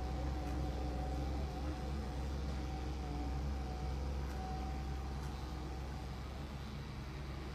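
Electric dog grooming clippers running with a steady motor buzz and low hum as they shear a matted coat.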